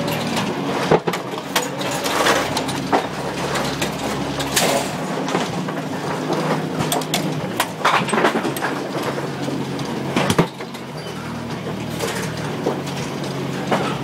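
Duckpin bowling pinsetter machinery running: a steady motor hum under a constant clatter of clicks and knocks from its mechanism, with a few louder clanks.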